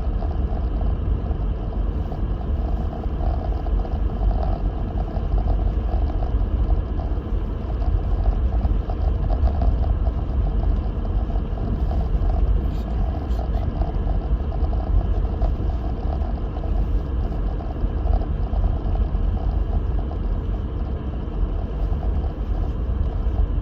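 Steady low rumble of a Lexus GX470 with its 4.7-litre V8 driving slowly through deep snow: engine and tyre noise, even throughout.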